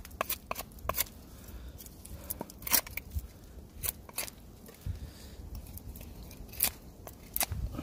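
Large bushcraft knife blade scraping and shaving bark off a dead pine branch: a run of short, irregular scrapes and clicks. The bark is being cleaned off to expose resin-soaked fatwood.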